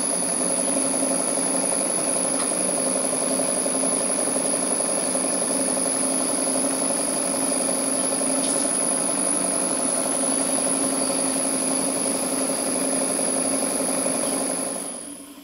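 Small live-steam model engines running steadily under steam, a continuous mechanical running sound with a faint high whistle over it, the engine having settled to smooth running after clearing the water from its cylinder. The sound falls away sharply about a second before the end.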